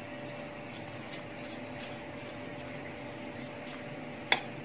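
A few soft clicks and taps of a silicone spatula against a plate as spices are scraped onto mashed potatoes, over a steady low hiss with a faint hum.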